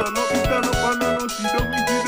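Fly X3 mobile phone ringtone played on Yamaha MidRadio: a synthesized polyphonic melody over a steady beat.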